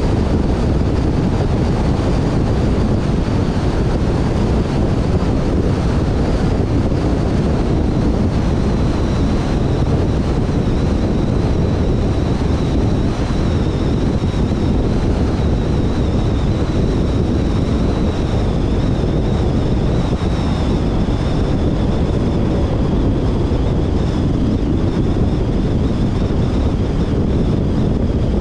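Steady road noise from a car travelling at motorway speed: tyre roar and wind rush, with a faint high whine drifting slowly lower through the middle.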